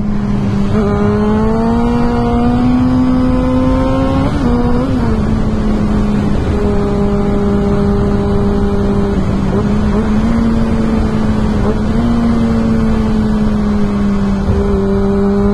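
Kawasaki ZX6R inline-four sportbike engine running loud under way. The revs climb for a few seconds, drop with a gearshift about four seconds in, then hold fairly steady, over wind rush.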